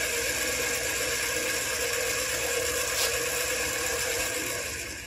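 Mini metal lathe running steadily with a PVC pipe elbow spinning in its chuck, a whir with a steady hum. It winds down near the end as the lathe is switched off.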